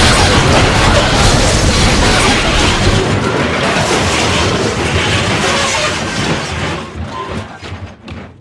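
Train crash sound effect: a dense, loud crashing and rumbling wash. Its deepest rumble drops away about three seconds in, and the rest fades out near the end.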